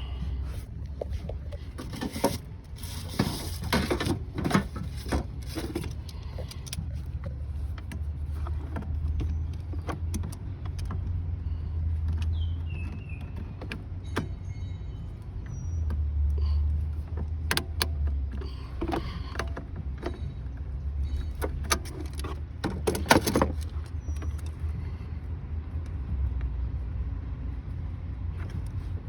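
Metal hand tools clinking and clattering in several bursts as spring clamps are set on coolant hoses, over a steady low rumble.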